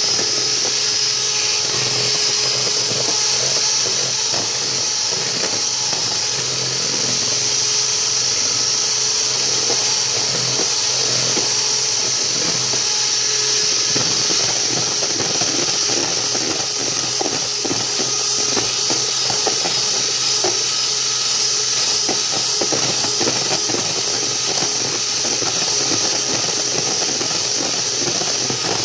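Electric hand mixer running steadily, its twin wire beaters whipping heavy cream in a bowl, with a constant motor hum and high whine. Light, irregular ticking grows busier from about halfway through. The cream is thickening but has not yet reached soft peaks.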